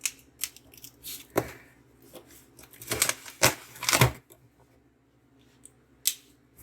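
Product packaging being handled and opened: a scatter of clicks and knocks, then a few seconds of crinkling, tearing packaging noise about three seconds in.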